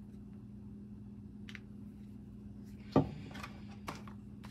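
A small plastic paint bottle set down on a wooden workbench with one sharp knock about three seconds in, followed by a lighter tap. A steady low hum runs underneath.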